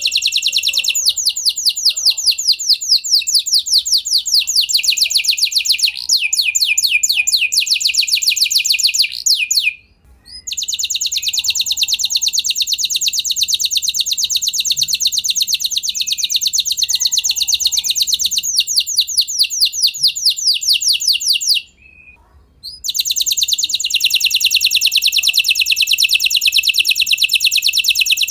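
Domestic canary (F1 canary) singing in long, fast trills of rapidly repeated high notes. The song comes in three long phrases, broken by two short pauses about a third of the way in and about three-quarters of the way in.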